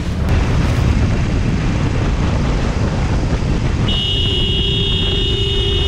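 An explosion sound effect, a loud rumbling blast, for about the first four seconds. Then the noise of a motorcycle riding in traffic, with a steady high tone held over it from about four seconds in.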